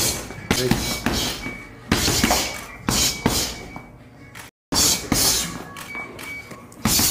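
Gloved punches landing on a heavy punching bag in quick combinations, a string of sharp smacks and thuds in uneven bursts. The sound cuts out completely for a moment at about four and a half seconds.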